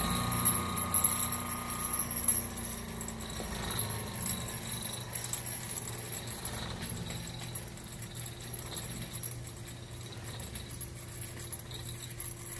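1 HP Century repulsion-start induction-run electric motor running with a loose rattle from its ring oilers, which rattle because the oil baths are not filled. A faint whine slowly falls in pitch over the first several seconds and the sound gradually eases off.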